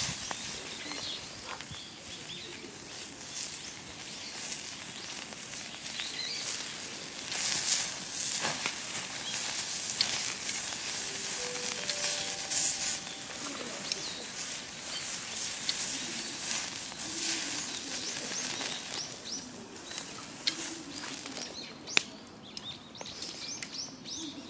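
Steady crackling, sizzling hiss with many small pops from the wood-fired grill. It thins out near the end, where faint bird chirps come through.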